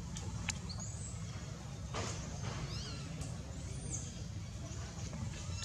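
A few brief high-pitched squeaks from a newborn macaque, over a steady low rumble, with a click and a short rustle in between.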